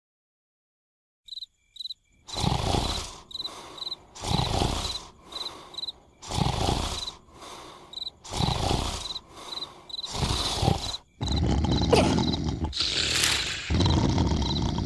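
Cartoon snoring sound effect: long snores about every two seconds over a background of cricket chirps, which start after a second of silence. Near the end the snores get louder and run together.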